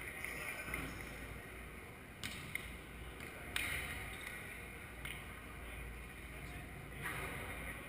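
Echoing hall ambience of an indoor sand volleyball court, with two sharp smacks of hands hitting the volleyball about two and three and a half seconds in, the second one louder.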